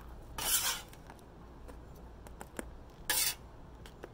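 Metal spatula scraping across the steel top of a Blackstone griddle, scooping up fried rice: two short scrapes, about half a second in and again about three seconds in, with a few light clicks between.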